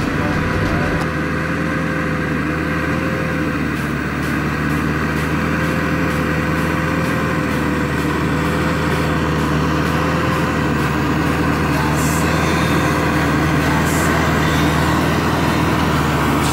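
Tractor's diesel engine running steadily under load while pulling a ripper through the soil, growing slightly louder as it approaches.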